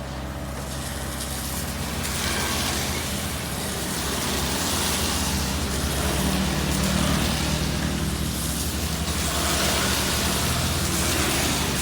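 Heavy diesel engine running with a steady low hum. Over it come two long swells of rushing noise, the first building from about two seconds in and the second near the end, as the excavator works loading sand.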